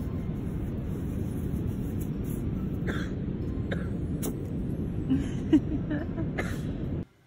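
Steady wind rumbling on the microphone, with a few short sharp sounds as a puppy digs and noses in beach sand; the loudest comes about five and a half seconds in. The noise cuts off suddenly just before the end.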